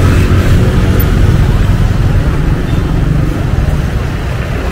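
City street traffic: passing vehicles making a steady, heavy low rumble.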